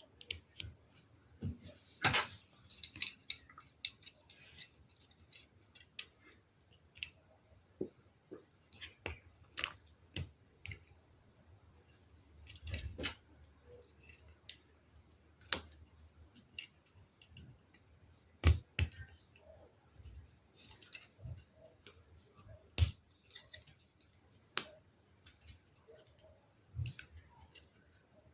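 LEGO Technic plastic parts being handled and pressed together: irregular small clicks and light knocks, with a few louder sharp snaps.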